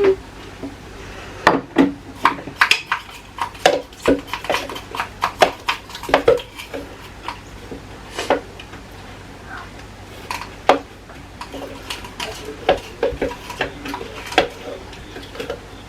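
Dishes and kitchen utensils clinking and knocking at irregular intervals, many short sharp clicks with no motor running.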